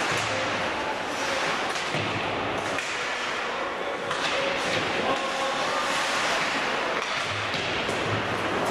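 Ice hockey play: a steady wash of rink noise from skating, with several sudden knocks and thuds from stick, puck and boards a second or more apart.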